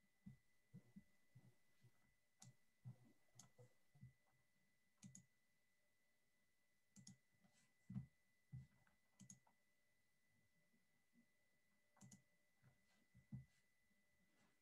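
Near silence broken by scattered faint, irregular clicks and soft knocks, with a faint steady high-pitched tone underneath.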